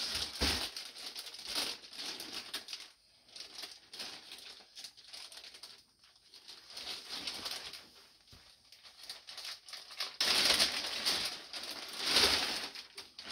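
Packing paper rustling and crinkling as an item is pulled out of a shipping box, in irregular bursts, with louder stretches about ten and twelve seconds in.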